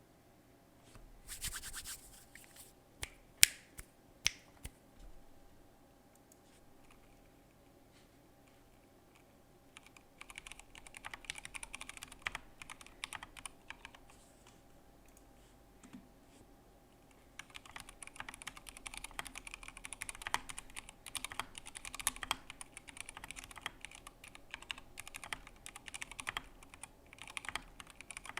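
Typing on a Durgod K320 mechanical keyboard with stock, unlubed linear Cherry MX Black switches and PBT keycaps. A few separate key clicks come first, then a short run of typing, then steady fast typing for the last ten seconds or so.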